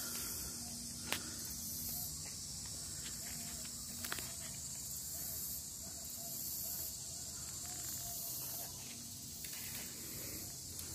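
Steady high-pitched chorus of summer insects, a continuous hiss that swells and fades in slow pulses, with a couple of faint clicks.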